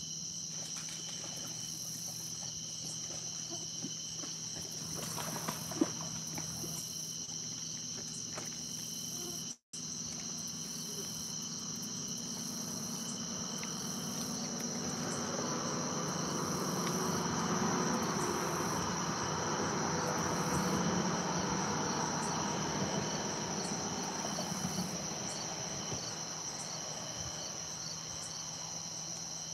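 A steady chorus of night insects chirping at several high pitches. A softer rush of noise swells up and fades back through the middle of the stretch, and the sound cuts out for an instant about a third of the way in.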